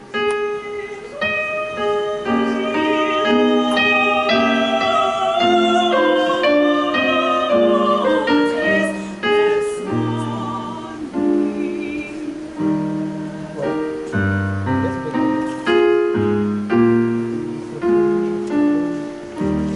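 Music: piano-type keyboard chords with a melody line above them, held notes with vibrato.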